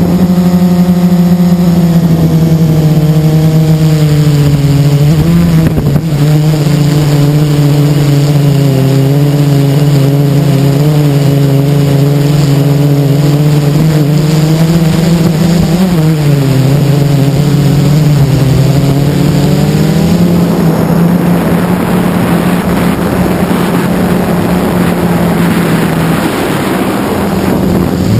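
Blade 350QX quadcopter's brushless electric motors and propellers running loudly up close, a steady whine whose pitch dips and recovers twice as the throttle changes. For the last several seconds a loud rushing noise joins the motor sound.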